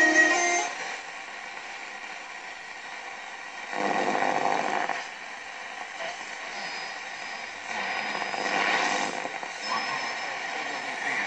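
VEF Spidola 230-1 portable radio's speaker: music cuts off within the first second, giving way to steady hiss and static between stations, with faint high whistles and two brief louder snatches of signal about four and eight seconds in, as the set is tuned across the band.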